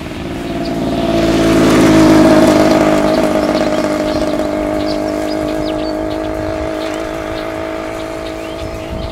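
A vehicle engine speeding up over the first couple of seconds, then running on at a steady pitch and slowly easing off.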